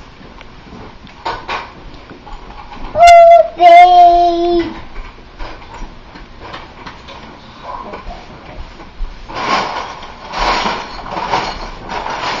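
Two loud, held cries from a voice about three seconds in, the second one longer and lower, against a background of faint household clatter.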